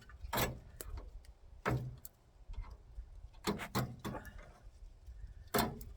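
Wire cutters snipping through an old car wiring harness: about six sharp snips at irregular intervals, during a teardown for a full rewire.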